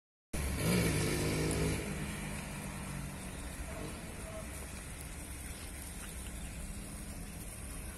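A motorcycle engine passing close by, loudest in the first second or two, then fading away, leaving a steady low rumble.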